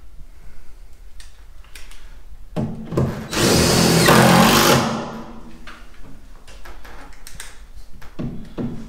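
Cordless drill driving a screw into an aluminium rail of a truck box body: a brief burst about two and a half seconds in, then a steady run of about a second and a half. Light taps and knocks before and after.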